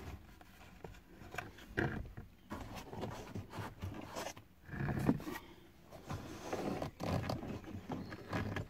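Ford Mondeo Mk3 A-pillar trim panel being worked back into place against the dashboard by hand: irregular rubbing, scraping and small knocks, with a louder scrape about five seconds in.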